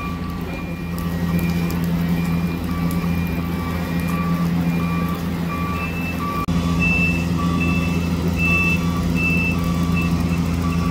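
Diesel engines of an asphalt paver and dump truck running steadily, with a reversing alarm beeping about one and a half times a second. About six and a half seconds in, the sound briefly drops out and a higher-pitched reversing beep takes over.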